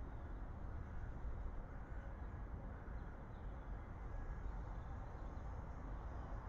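Steady outdoor ambience on a rooftop webcam's microphone: a low rumble with a faint hiss over it, and no distinct events.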